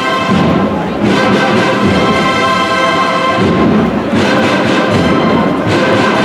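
Procession brass band playing a Holy Week march: held brass chords over drums, with the chord changing a few times.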